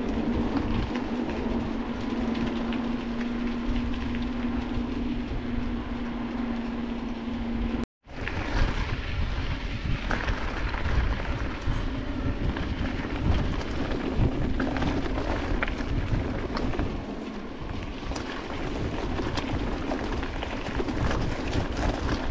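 Ride noise from an electric mountain bike on a wet, muddy trail: low wind rumble on the action camera with scattered rattles and knocks from the bike over stones. A steady hum runs for the first eight or so seconds, then the sound drops out for a moment and the rumble and knocks carry on.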